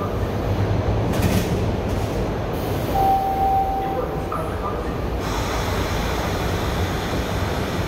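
Subway car at the platform sounding a door-closing warning: one steady tone about a second long, then the sliding doors shutting, over the steady low rumble of the standing train.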